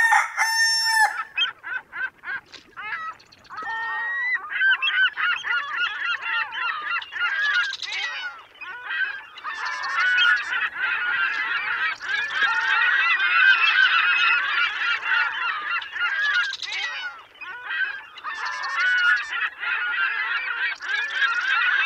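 A flock of birds honking, many calls overlapping in a dense chorus. It is sparse at first and builds to continuous calling after about four seconds.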